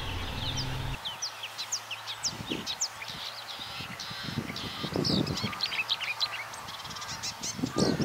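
Marsh warbler singing: a rapid, varied run of short chirps and whistles, in a song that mimics other birds, with a few lower, louder notes around the middle and near the end.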